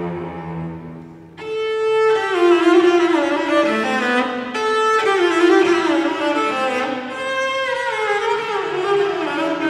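Bowed string music. A low held note fades out, then about a second and a half in a violin takes up a slow melody with vibrato and gliding pitch.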